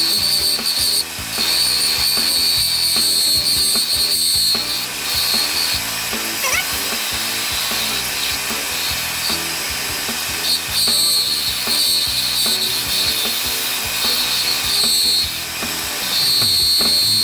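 A wood lathe turning a pen blank on a mandrel while a turning tool cuts and shapes the upper barrel: a high-pitched cutting sound that comes and goes as the tool meets the wood. Background music plays underneath.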